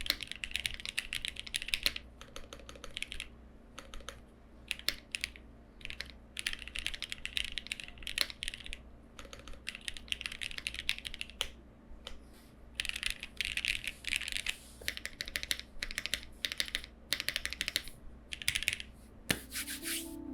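Typing on a Lucky65 v2 mechanical keyboard built without foam, with linear Milky Yellow switches, tuned Cherry PCB-mount stabilisers and GJ Japan keycaps: quick runs of keystroke clacks broken by short pauses.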